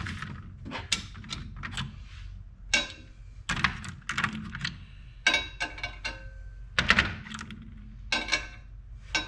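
Metal engine parts being handled and set down on a workbench: an irregular series of knocks and clinks, a few ringing briefly.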